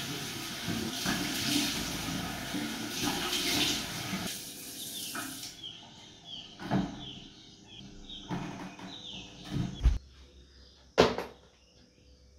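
Bathroom washbasin tap running and water splashing as someone washes at the sink. The running water stops about halfway through, leaving scattered splashes and knocks, with one sharp knock near the end.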